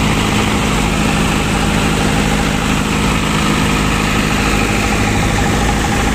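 Trailer-mounted generator set's engine running steadily at constant speed: an even, unbroken low engine drone.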